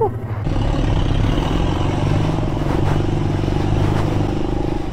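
Aveta RangerMax Explorer 130 cub-style motorcycle's engine running steadily while riding a dirt track, heard close up from the rider's position.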